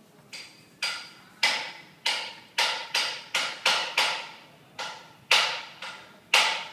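Metal-cutting band saw working through a metal workpiece, giving a string of sharp metallic knocks, each ringing briefly, roughly two a second at uneven spacing.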